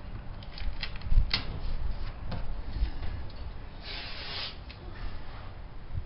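Handling noises from taping off a boat console with painter's tape: small clicks and knocks, with a short ripping sound about four seconds in as tape is pulled off the roll.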